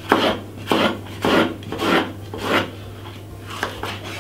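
Kitchen knife slicing a yellow bell pepper on a wooden chopping board: five even cutting strokes about every 0.6 s, then two lighter cuts near the end.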